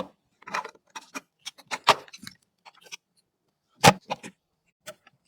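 Scattered clicks, taps and small knocks of computer parts and screws being handled and fitted during a PC build, with one louder knock about four seconds in.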